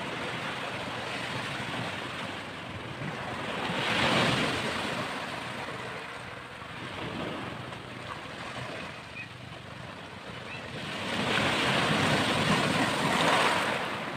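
Small waves washing up a sandy beach and foaming around the shoreline, surging twice: once about four seconds in, and longer and louder near the end.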